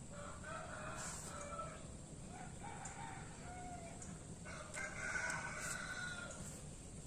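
Rooster crowing: three drawn-out crows one after another, the last the loudest.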